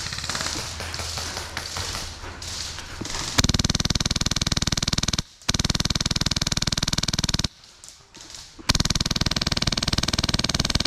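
Airsoft electric gun firing on full auto in three long bursts of about two seconds each, a fast buzzing rattle of shots, starting about three and a half seconds in. Before the bursts there is only rustling movement.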